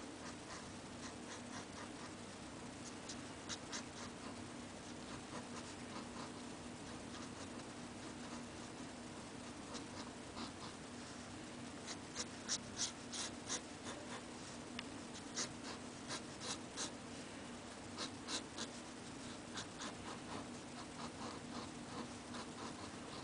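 Nib of an Onoto De La Rue fountain pen scratching across paper in short strokes, coming in quick runs of hatching strokes from about halfway through. A faint steady hum runs underneath.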